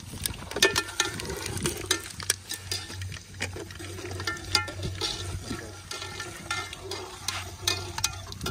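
A metal spoon stirring whole spices in hot oil in a cooking pot, clinking and scraping against the metal many times, over a steady watery hiss.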